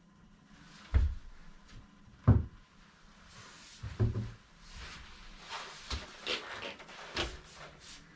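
Knocks and thuds of a bike being lifted out of its cardboard shipping box, two loud thuds about one and two seconds in, then scuffing and further knocks as it is stood upright.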